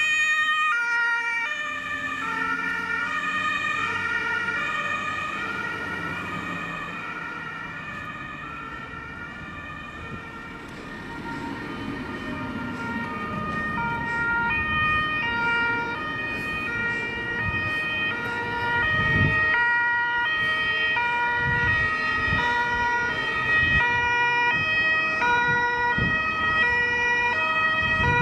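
German two-tone emergency sirens (Martinshorn) alternating between a high and a low note, several at once and out of step. An ambulance's siren fades after passing, then a column of fire engines approaches with sirens and engine noise, growing louder from about ten seconds in.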